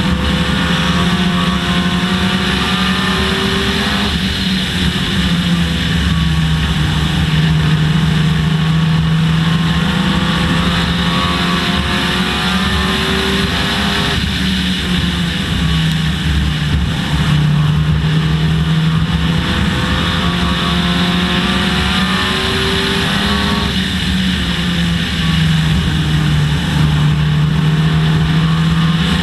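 Dodge Neon race car's four-cylinder engine running hard, heard on board. Its pitch climbs steadily and then drops abruptly about every ten seconds as the car enters a turn.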